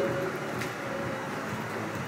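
Steady gym room hum with a faint held tone, and one faint click about two-thirds of a second in.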